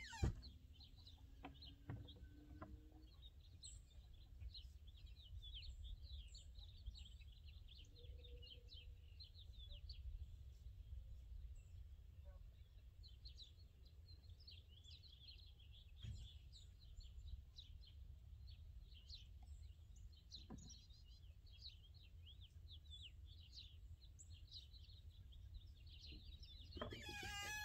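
Faint outdoor birdsong: many short, high chirps from small wild birds, coming in loose flurries, over a low steady rumble. A few soft knocks now and then.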